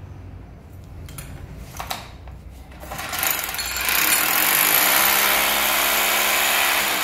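Electric hammer drill boring a hole through ceramic tile into a masonry wall. After a few light handling knocks, it starts about three seconds in and then runs steadily and loudly.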